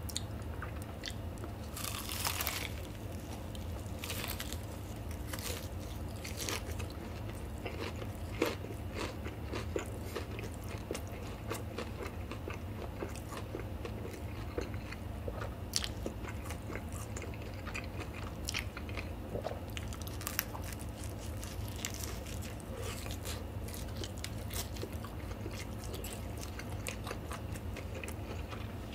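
Close-miked eating of a crispy Puringkle fried chicken drumstick: a large crunchy bite through the breaded skin about two seconds in, then scattered crunches and chewing, over a steady low hum.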